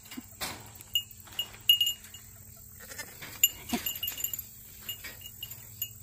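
Small goats pulling hay through a metal grid hay feeder, with scattered clicks and rattles. A short goat bleat comes about three and a half seconds in.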